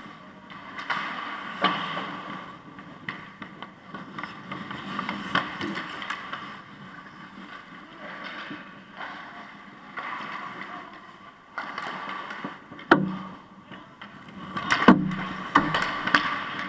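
Ice hockey play around the goal: skates scraping the ice and sticks clattering, with scattered sharp knocks. The loudest knocks come about thirteen and fifteen seconds in.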